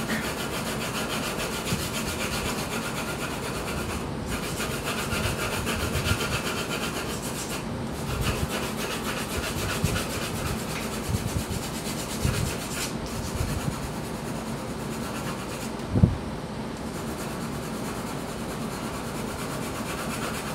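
A 2H graphite pencil shading across drawing paper in long broad back-and-forth strokes, a steady scratchy rubbing that breaks off briefly a few times as the pencil lifts. About sixteen seconds in there is a soft thump, the loudest moment.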